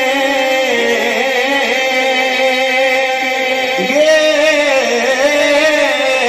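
A man singing a naat into a microphone, heard over a loudspeaker system, holding long notes that waver up and down in pitch.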